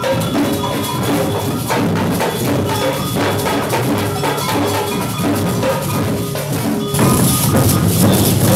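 A children's samba percussion group playing together: a surdo bass drum, small hand drums hit with sticks, and metal tube shakers keeping a steady beat. The shakers' hiss grows louder about seven seconds in.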